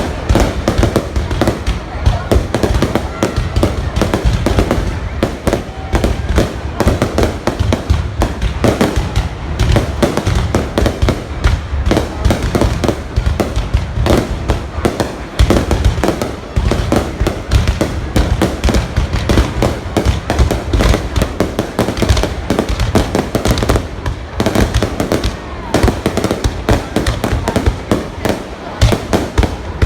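Fireworks going off in a dense, continuous barrage of rapid bangs and crackles, with deep low booms.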